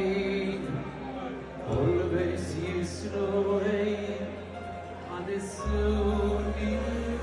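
Live Jewish band music with a male singer singing into a microphone over held bass notes that change twice.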